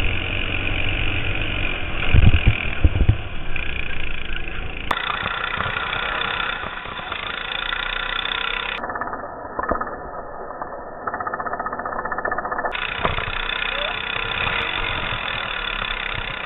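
Go-kart engine running at racing speed, heard through an onboard action camera's microphone, with strong low rumbling buffets about two seconds in.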